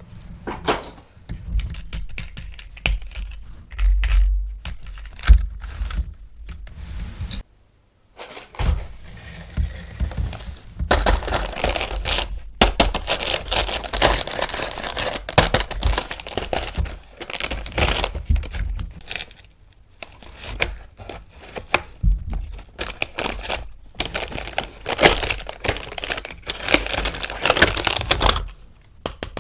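Close-up handling of toy packaging: plastic wrap crinkling and tearing, with rapid clicks and taps of hard plastic toy parts. The sound cuts out briefly about a third of the way through.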